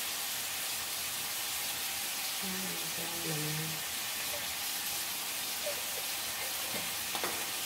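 Steady sizzle of food frying in a wok on a gas burner.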